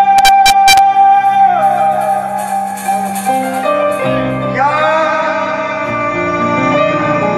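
Live amplified music: a male singer holding long, wavering notes over keyboard and drum accompaniment, with a quick run of four sharp drum strikes just after the start.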